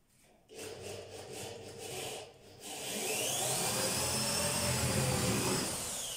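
Electric drill boring into a wooden parquet floor with a wood drill bit. There is some uneven scraping first. From about three seconds in the drill runs steadily, its motor whine rising as it spins up and dropping away near the end.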